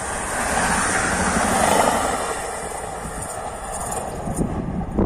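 Train running on the line, a broad rushing rumble that swells about one to two seconds in and then eases, with wind buffeting the microphone.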